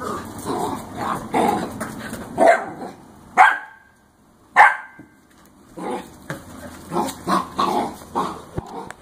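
Puppies barking and yipping in play. Two loud, sharp barks come a little over a second apart near the middle, followed by a run of quick yips.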